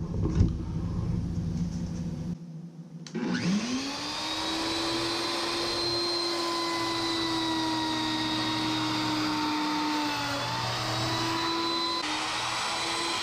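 Router motor spinning up about three seconds in and then running as a steady high whine while planing a teak board flat. Its pitch dips briefly near the end as the bit takes load.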